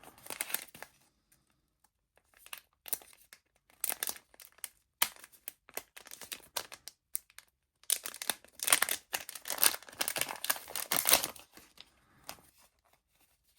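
Plastic packaging of a small radio receiver set being handled and opened: irregular crinkling and rustling, sparse at first and densest for a few seconds past the middle.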